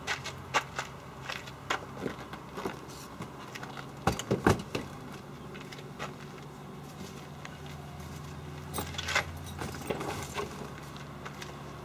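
Cases and gear being handled and loaded into a car's open boot: scattered clicks, knocks and light rattles, with a cluster of louder knocks about four seconds in and more rattling near the end, over a steady low hum.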